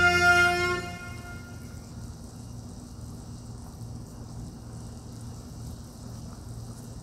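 A held, organ-like chord of background music fades out over the first second, leaving a quiet, steady hiss with a faint low hum.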